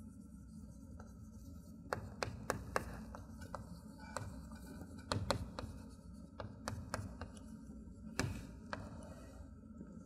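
Chalk tapping and scraping on a chalkboard as words are written by hand: a run of sharp, irregular taps.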